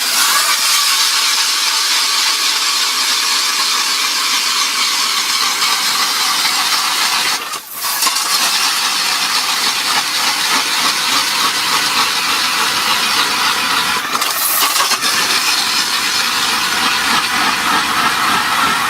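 Ice auger boring a hole through lake ice: a steady, loud grinding hiss, broken off briefly about eight seconds in.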